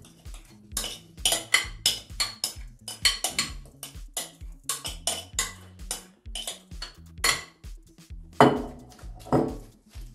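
A metal spoon clinking and scraping against a glass mixing bowl as a damp broccoli mixture is scraped out onto a pizza pan, in many quick irregular strokes with two louder scrapes near the end. Background music with a steady beat plays underneath.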